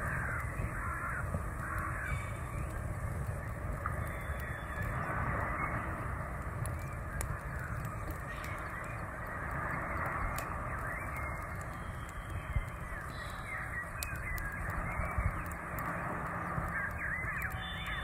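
Birds calling again and again over the steady rush of a rocky stream.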